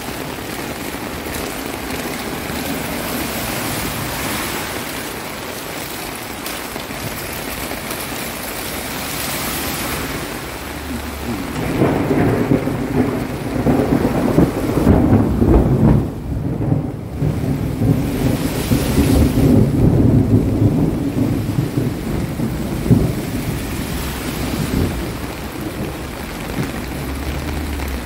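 Heavy rain pouring down in a steady hiss. Partway through, a long low rumble of thunder rises and rolls on for about ten seconds before easing.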